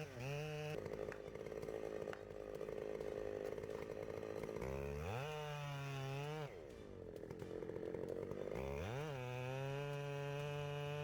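Chainsaw running at throttle and cutting wood. Its pitch drops off briefly about six and a half seconds in, then rises again as it revs up near nine seconds and holds steady.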